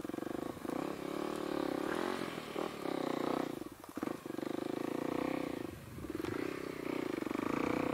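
Kawasaki KLX 300 dirt bike's single-cylinder four-stroke engine running through a Delkevic carbon slip-on exhaust while riding. The engine note dips and picks up again several times as the throttle is eased off and rolled back on.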